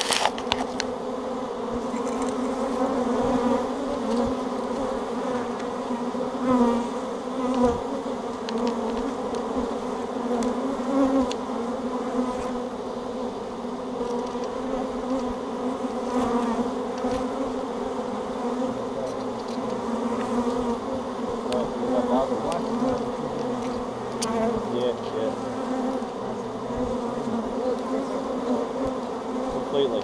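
A honey bee swarm buzzing steadily right at the microphone, as masses of bees crawl and fly around the entrance of a hive box they are walking into. The hum is even, with a low droning pitch and an overtone above it.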